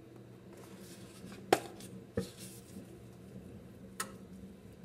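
Kitchenware being handled: three sharp clinks and knocks, the loudest about a second and a half in, over a faint low steady hum.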